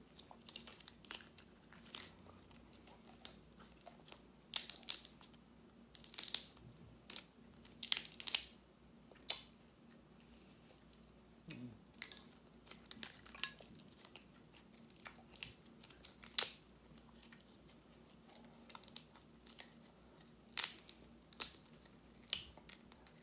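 A person eating oven-baked lobster tail close to the microphone: irregular crunching bites and chewing, with sharp clicks every second or so.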